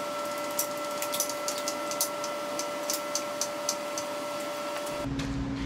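Steady hum with two thin high whines, with scattered light metallic clicks and ticks, a few a second, from tools being handled at the ATV's jack. The ATV's engine is not running.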